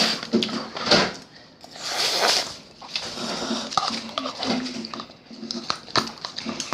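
Spoon or chopsticks clinking and scraping against a ramen bowl during eating, with short noisy bursts of slurping or mouth sounds in between.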